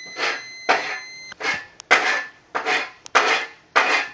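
Repeated clattering strokes, about two a second, each starting sharply and dying away quickly, with a steady high ringing tone under the first second or so.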